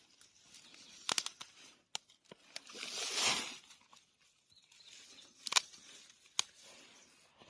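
Wild fern fiddlehead stalks snapped off by hand among the undergrowth: a few short, sharp snaps with a longer rustle of leaves about three seconds in.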